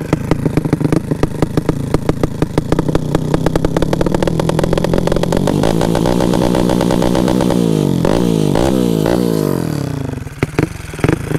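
Carbureted motorcycle engine with a Koso PWK 32 carburetor, its air screw turned all the way in to cut the air to the mixture, running with a rapid, even chop. About five seconds in it is revved up and held, then let fall back with a couple of quick blips, and settles to a lower level near the end.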